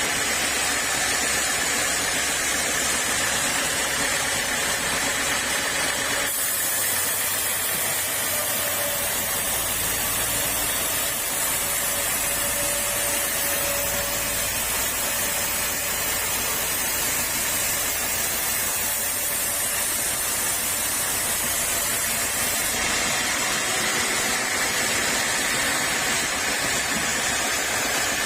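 Sawmill saw running with a steady, loud hissing noise. The sound changes abruptly about six seconds in and again about five seconds before the end.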